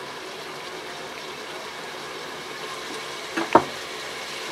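Mutton gravy with freshly added chana dal simmering in an open pressure cooker, a steady soft hiss. Two quick sharp knocks come about three and a half seconds in, the second one louder.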